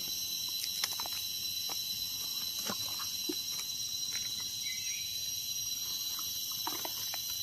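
Steady, even high-pitched chorus of forest insects, with faint scattered rustles and light clicks of dry leaf litter as mushrooms are cut and picked from the ground.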